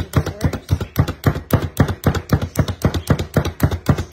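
Pampered Chef manual food chopper being pumped rapidly by hand, its spring-loaded plunger slapped down about five times a second in an even run of plastic clacks and thumps as the blades chop red onion.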